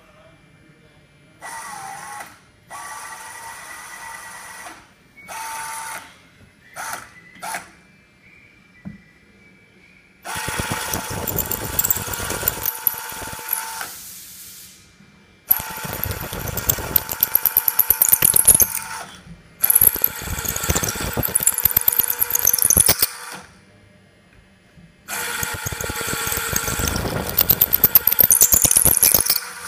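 Roscamat R-Tiger electric tapping arm's motor driving a drill bit, then a countersink or reamer, into a metal block. A few short spin-ups come first, followed by four runs of harsh cutting noise, each lasting several seconds, with short pauses between them.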